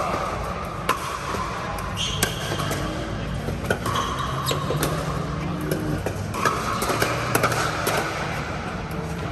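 A pickleball rally: paddles striking the hollow plastic ball in sharp pops about once a second, coming in quicker succession near the end. Background voices and a steady low hum run underneath.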